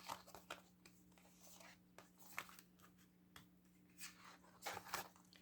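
Faint, scattered rustles and light taps of thin recipe cards being handled and turned over, a few slightly louder near the middle and toward the end, over a steady low hum.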